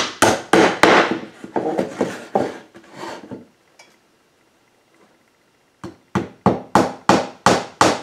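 Hammer driving small nails into the wooden side panel of a birdhouse kit: quick, even blows about three a second that grow lighter as the nail seats and stop about three and a half seconds in. After a short pause, a new run of blows starts on the next nail.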